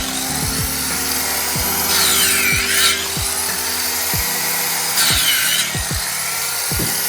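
Background music: sustained tones with repeated falling low notes and a swooping figure recurring about every one and a half seconds, over a steady hiss.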